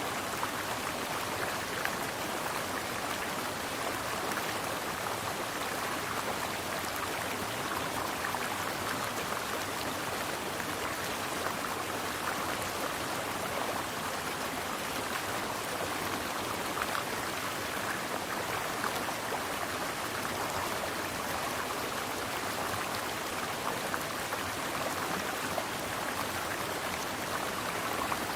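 Mountain stream water flowing steadily, an even rushing sound with small splashes throughout.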